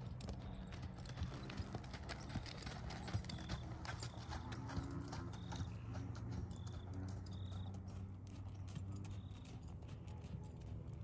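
Horse's hoofbeats at a jog on a sand arena footing, an uneven run of soft clip-clops, with a short high chirp every second or two.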